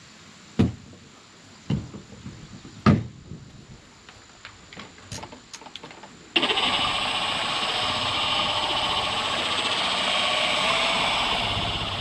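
A few sharp knocks, then about six seconds in a cordless Milwaukee dual-action polisher switches on and runs steadily with its pad on the truck's paint. It is spreading finishing sealant at a low speed setting.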